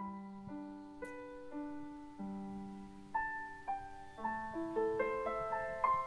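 Piano intro of a recorded backing track: single notes struck and left to ring. The notes come faster and louder toward the end, and climb higher in pitch.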